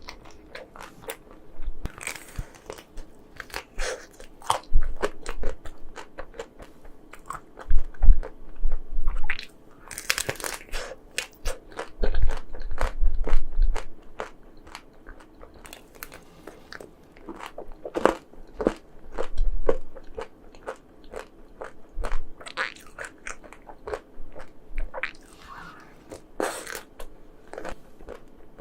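Biting and chewing of frozen chocolate ice cream: repeated crisp crunches come in irregular clusters, with quieter chewing between them.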